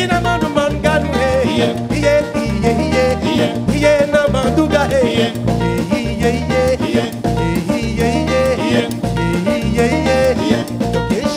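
Live band playing an upbeat dance groove on drum kit, bass and electric guitar, with a man singing over it.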